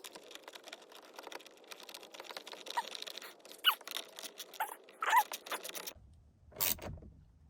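Light clicking and rustling of hands working plastic steering-column parts and connectors, with a few brief squeaks. The background changes abruptly about six seconds in.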